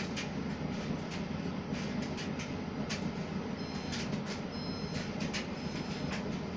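Domestic tumble dryer running: a steady low rumble of the turning drum, with scattered light clicks and knocks.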